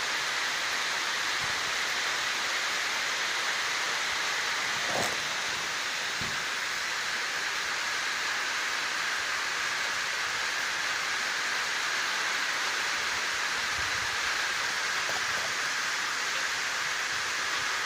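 Heavy rain pouring down steadily on rooftops and plants: a dense, even hiss.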